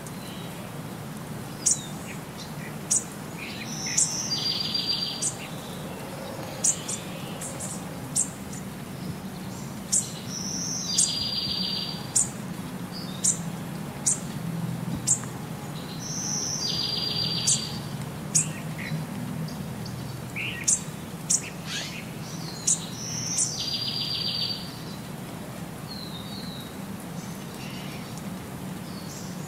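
Birds chirping: sharp high chirps and a short buzzy trill, the same pattern repeating about every six seconds like a looped birdsong background track.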